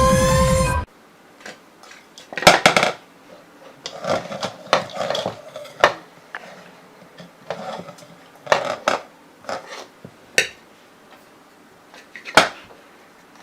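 Background music cuts off about a second in. Then come irregular clatters and knocks of hard objects, like dishes or utensils being moved about, with the loudest near the start and near the end.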